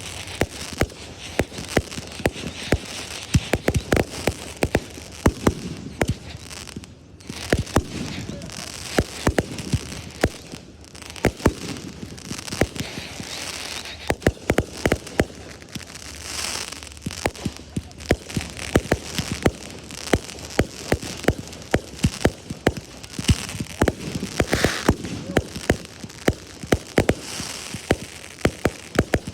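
Fireworks display going off: a continuous, irregular run of sharp bangs and crackling, many reports a second at times.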